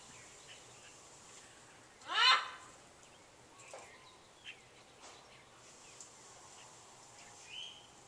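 A pet macaw gives one loud "kwaak" squawk about two seconds in, its pitch sweeping upward, with a few faint short calls after it.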